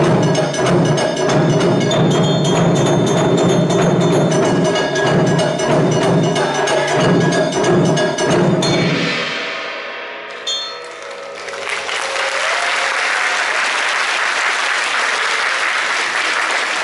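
Taiko drum ensemble playing fast, dense rhythms on many drums, stopping sharply about eight and a half seconds in as the piece ends. The drums ring out, a single last stroke sounds, and then the audience applauds.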